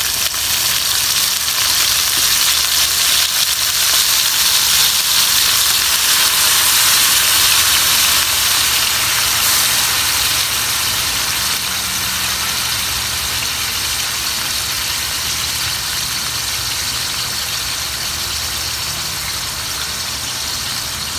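Wet raw chicken pieces frying in hot oil in an aluminium wok: a loud, steady sizzle that builds over the first few seconds and eases a little in the second half, with a low steady hum underneath.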